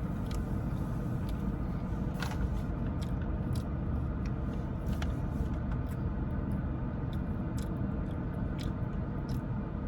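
Steady low rumble of a car heard from inside while driving, with scattered light clicks and crunches of snacks being eaten.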